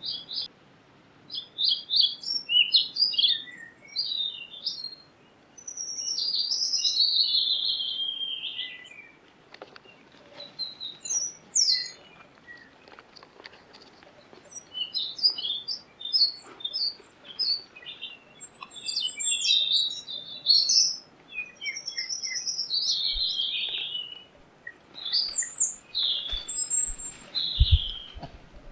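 High-pitched animal chirping: clusters of quick squeaky chirps and a few longer calls that slide down in pitch, coming and going in bouts, with a brief low bump near the end.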